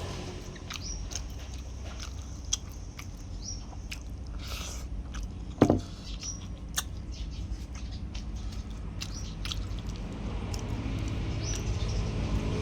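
Close-up chewing and biting of chicken: scattered wet mouth clicks and smacks, with one louder sharp knock about five and a half seconds in.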